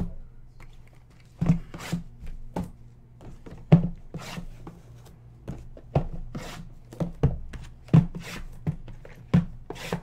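Shrink-wrapped cardboard boxes of trading cards being handled, slid and set down one after another on a tabletop: a dozen or so light thuds and knocks with short rustling scrapes, at irregular intervals.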